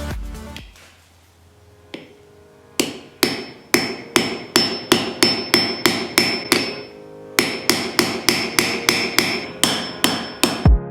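Steady hammer blows on metal, about two to three a second, each strike leaving a short metallic ring. The blows come in two runs with a brief pause between them, as in small-part metalwork for a handmade folding knife.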